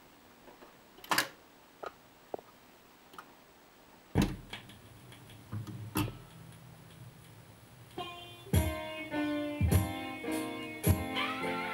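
Record changer of a 1970 General Electric console stereo cycling: a few mechanical clicks, then a thump as the tonearm sets down on a freshly dropped 7-inch single, followed by groove rumble and a click. Music from the record starts about eight seconds in, heard through the console's own speakers.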